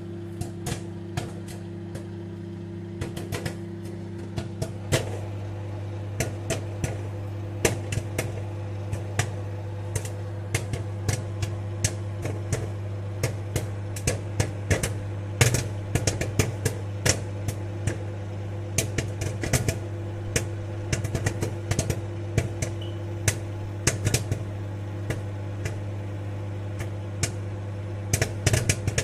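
Popcorn popping in a microwave oven: many sharp pops at several a second, over the steady hum of the running oven.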